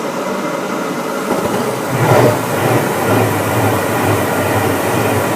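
Gas furnace burners lighting with a rush about two seconds in, then a steady rumbling flame with a low pulsing throb over the inducer fan's hum. The flame will not hold, because the bad flame sensor fails to sense it and the furnace shuts the gas back off.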